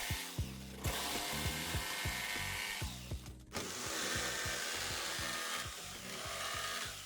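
Jigsaw cutting wood, running in two long stretches with a short break about three seconds in, over background music.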